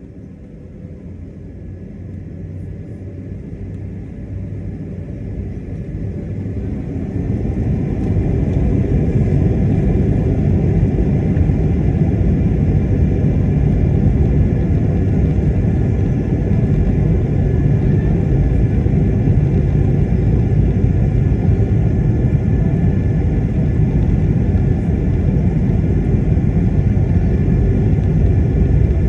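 Airbus A220-300's Pratt & Whitney PW1500G geared turbofan engines spooling up to takeoff thrust: a rumble that swells over the first several seconds, then holds loud and steady during the takeoff roll, with steady higher tones above it.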